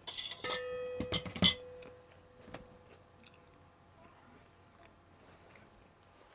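A short rustle and a few sharp clinks of dishes or cutlery while eating, one clink leaving a ringing tone that fades over about two seconds; then only faint small clicks.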